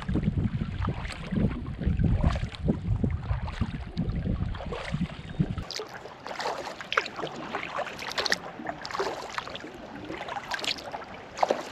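Sea kayak paddling: the paddle blades dipping and splashing, with drips and small slaps of water. Wind rumbles on the microphone until about halfway through, then cuts off suddenly, leaving only the water sounds.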